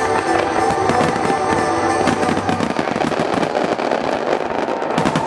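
Fireworks bursting and crackling, with dense rapid pops and bangs all through, over music playing. The crackle comes from glittering strobe effects and aerial shell bursts.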